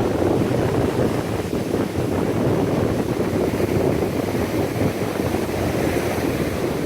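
Strong wind buffeting the microphone over the steady rush of surf.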